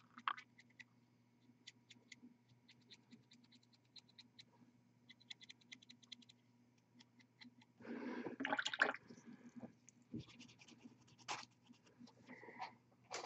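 Dry, stiff paintbrush bristles flicked and scratched over a plastic miniature in dry-brushing: many faint light ticks, with a louder rustling scrape about 8 seconds in.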